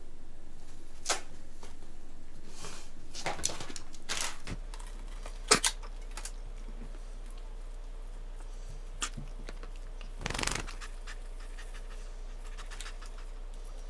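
Scattered light clicks and short rustles of small Christmas ornaments and tinsel being handled and hung on a small artificial tree. The sharpest click comes about five and a half seconds in, and there is a longer rustle near ten seconds.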